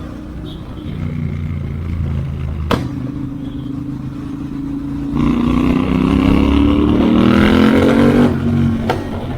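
Royal Enfield Interceptor 650's parallel-twin engine running through its tuned exhaust on the move, with a single sharp crack about three seconds in. It revs up from about five seconds in and eases off shortly before the end.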